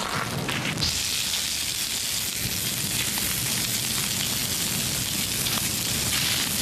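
Water jetting from a fire hose reel nozzle onto a fire, a steady hiss with a sizzle as it hits the flames, growing louder about a second in.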